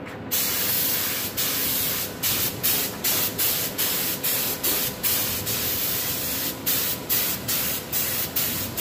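BULL BLSG01-827 HVLP spray gun hissing as it sprays a thin first coat of base-coat paint. One longer pass comes first, then the trigger is pulled in many short bursts, about two a second.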